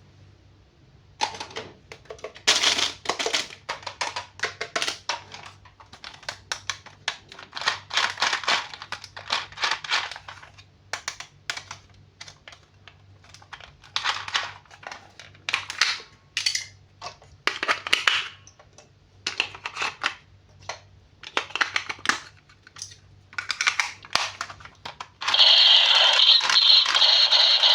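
Toy packaging being handled and opened by hand: irregular crinkling, rustling and clicking of plastic and cardboard. Music starts near the end.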